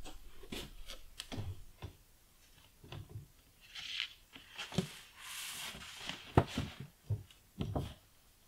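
A large painted sheet being handled and lifted off a wooden table: rustling of the sheet with scattered clicks and knocks, one knock sharper than the rest about six seconds in.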